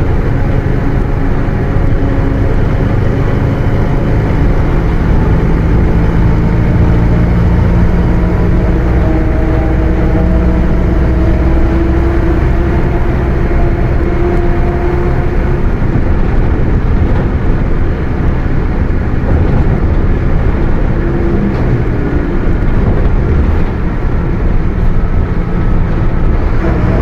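Mercedes-Benz OF 1721 BlueTec 5 bus under way: its diesel engine running with the rear differential whining, several pitches slowly rising as the bus gathers speed, easing off past the middle and climbing again near the end.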